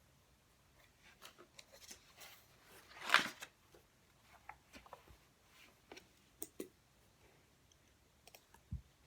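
Quiet desk handling sounds while studying: scattered light clicks and taps, with one louder brief rustle about three seconds in.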